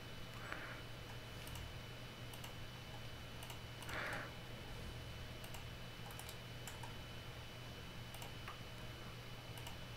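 Faint, scattered clicks of a computer mouse, about ten spread irregularly over the stretch, over a steady low hum and a thin high whine.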